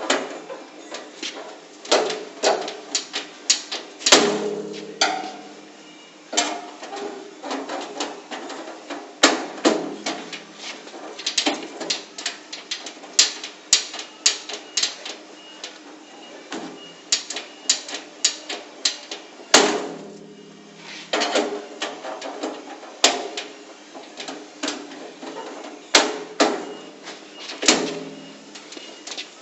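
A steel pry bar being forced and levered at the door edge of a Modul-Safe steel safety locker in a forced-entry attempt: a steady run of irregular metal clanks and scrapes. Three harder blows leave the steel box ringing.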